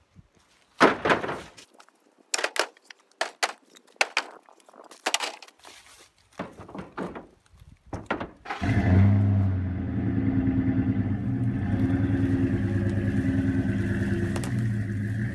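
Wooden knocks and clunks of firewood logs being loaded into a pickup bed, a string of separate hits. About eight and a half seconds in, a Ford F-150 pickup's engine starts and runs at a steady idle.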